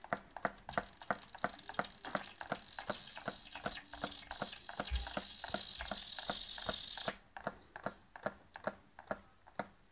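Homemade tin-can Stirling engine running over a candle, its mechanism clicking regularly at about four clicks a second. A hiss sits under the clicks until about seven seconds in.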